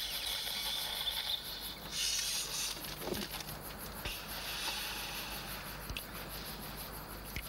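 Night insects chirping, a high, finely pulsed buzz that is strongest in the first second, swells again briefly about two seconds in, then carries on faintly.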